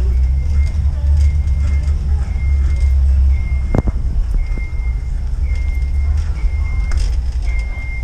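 Shopping cart rolling over a concrete store floor with a steady low rumble, a short high squeak recurring about once a second, and one sharp click about halfway through.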